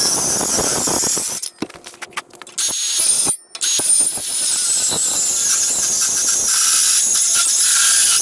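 A power tool cutting steel, giving a loud, high-pitched screech. It stops twice, about a second and a half in and again near three and a half seconds, then runs on.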